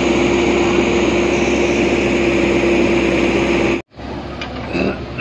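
JCB backhoe loader's diesel engine running close by: a loud, steady drone with a constant hum. It cuts off abruptly just under four seconds in, then returns quieter with a few faint clicks.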